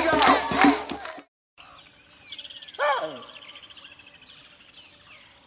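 Jungle ambience: many birds chirping and trilling, with one louder call that falls in pitch about three seconds in. Before it, cheering and music cut off about a second in.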